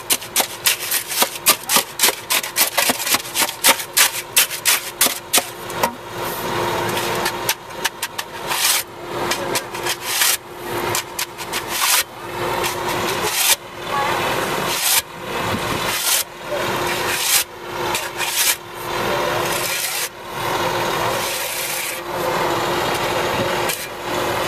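A shovel scraping wet concrete out of a wheelbarrow: quick scraping strokes, about two a second, for the first six seconds, then slower, longer scrapes about once a second.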